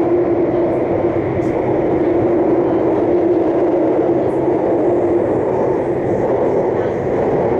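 Bangkok MRT Blue Line metro train running between stations, heard from inside the car: a loud, steady rumble with an even hum.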